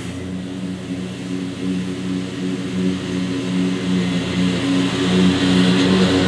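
Scag Cheetah zero-turn mower's engine running with its blades cutting thick field grass: a steady engine drone that wavers in strength about twice a second, over a hiss, growing a little louder near the end.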